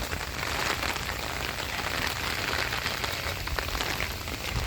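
Steady rain falling, an even hiss of drops on the wet ground, with a low rumble underneath.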